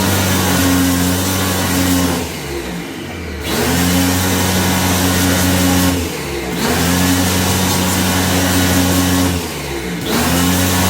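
Electric motor running with a steady hum that cuts back three times, its pitch sagging and climbing again each time, in runs of about three seconds.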